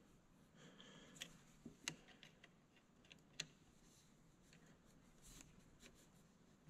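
Near silence broken by a few faint metallic clicks and ticks of a small hand tool working the choke linkage on a carburetor, the sharpest about two seconds in.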